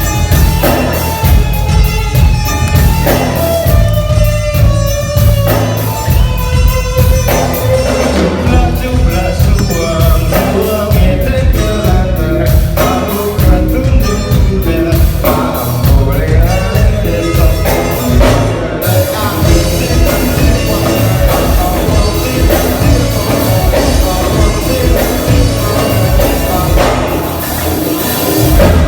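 A live band playing a rock-style song with a steady drum-kit beat and guitar, at a sound check.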